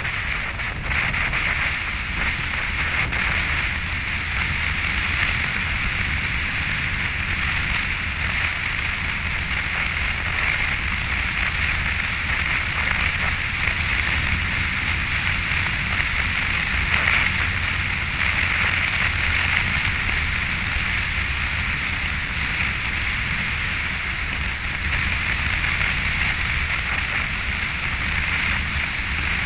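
Steady wind rush on the microphone of a helmet-mounted camera on a Yamaha FJR1300 touring motorcycle riding at road speed, with tyre hiss on wet tarmac mixed in.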